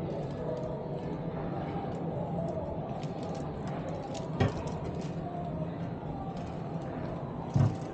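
Exhibition-hall ambience: a steady hum of indistinct crowd chatter, with a sharp knock about halfway through and another near the end.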